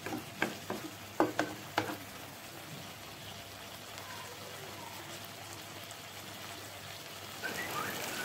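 Chicken pieces frying in masala and their own fat in a pan, a steady sizzle, with a spatula clacking and scraping against the pan about six times in the first two seconds.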